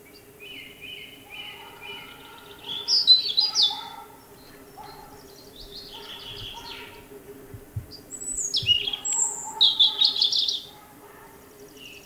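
European robin singing: a run of quieter repeated notes, then bursts of high, varied, rapidly changing notes, the loudest about three seconds in and again from about eight to ten and a half seconds.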